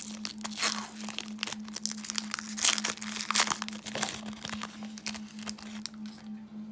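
Irregular crinkling and rustling of trading cards and their plastic packaging being handled, over a steady low hum.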